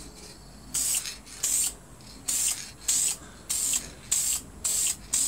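Lacquer being sprayed in short hissing spurts, about eight of them at roughly two a second, laying down a light coat of finish on wood.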